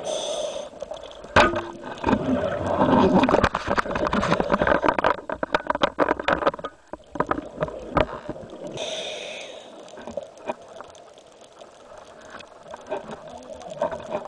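Underwater: a diver's breathing, with a short hiss at the start and again about nine seconds in, and a long stretch of exhaled bubbles gurgling in between. A sharp knock comes just after the first hiss, and small clicks and knocks run throughout.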